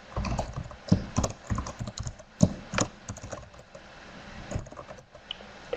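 Typing on a computer keyboard: a run of irregular key clicks, thicker in the first three seconds and sparser after that.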